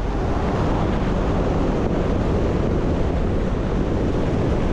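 Wind rushing over a parachutist's helmet-camera microphone during the descent under canopy: a steady, loud buffeting roar.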